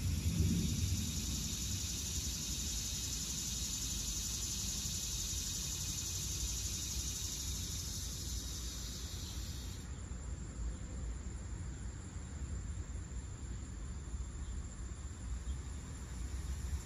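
Chorus of cicadas buzzing at a high pitch, which cuts off suddenly a little past the middle. A steady low rumble runs underneath.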